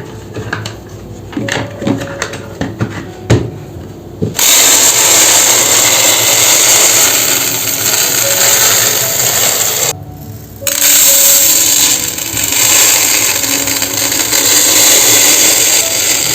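A few clicks and knocks of handling, then a loud electric motor appliance runs steadily, stops for under a second about ten seconds in, and starts again.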